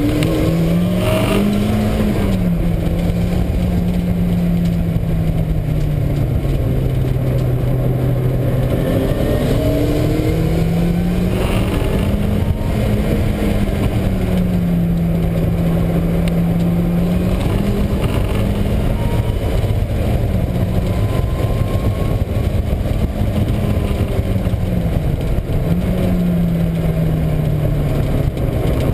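Mazda Miata's four-cylinder engine revving up and falling back again and again at track speed, over a dense road and wind noise, with a noise from a failing wheel bearing that comes mainly under engine braking. The owner first took it for the transmission or the exhaust; it is also felt in the steering wheel.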